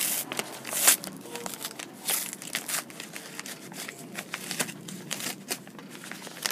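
Crinkling and rustling of a bubble envelope and its paper wrapping being handled and unwrapped by hand, in irregular crackles, loudest at the start and about a second in.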